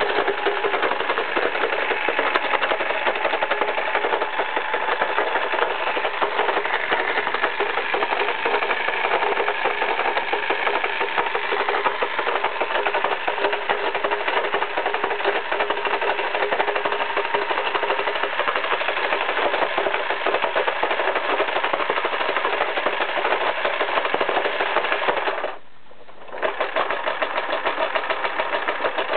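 Vintage Toyota 2202 electric sewing machine running steadily at speed, with a fast, even rhythm of needle and mechanism. It stops for under a second about 25 seconds in, then starts again. The machine has just been overhauled and regreased after a seized part was freed, and is running perfectly.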